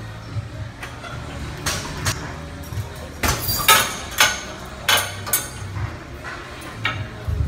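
Gym equipment clanking: a series of sharp metallic knocks and clinks, the loudest bunched about three to five seconds in, with a few more near the end, over a low steady hum.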